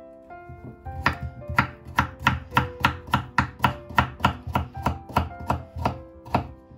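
Kitchen knife chopping a carrot into rounds on a wooden cutting board: a steady run of sharp knocks, about three cuts a second, starting about a second in and stopping shortly before the end.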